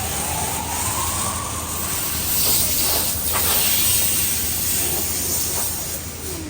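High-pressure surface-cleaning jet blasting against metal, giving a loud, steady hiss, with a faint tone rising over the first two seconds.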